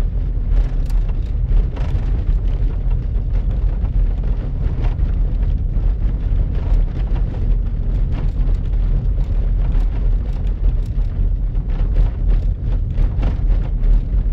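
Car driving on a slushy, snow-covered road, heard from inside the car: a deep, steady rumble of engine and tyres, with many small clicks and knocks throughout.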